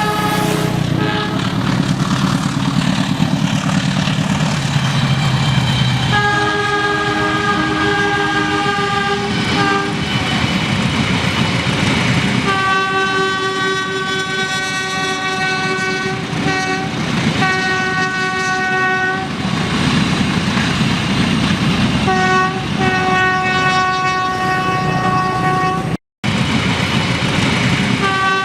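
Train horn sounding a string of blasts over the rumble and clatter of a moving train. The blasts run from a short toot to about six seconds long, with gaps of a few seconds between them. The sound cuts out for a moment near the end.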